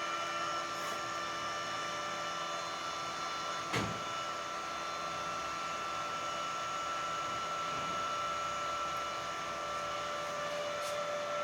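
Welding machine's cooling fan running steadily, a whir with a steady whine, with one short click about four seconds in.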